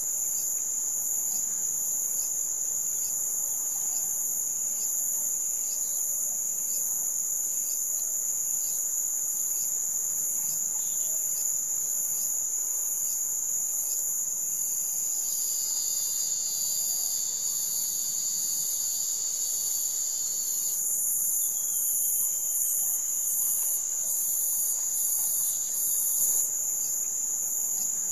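Steady, high-pitched chorus of insects with a fast pulsing shimmer above it. About halfway through, a held, slightly falling tone with overtones sounds for about five seconds.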